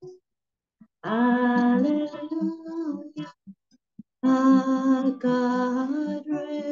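A woman singing a slow worship song to her own acoustic guitar, two long held phrases, the first about a second in and the second starting past the middle. The sound drops out completely between the phrases.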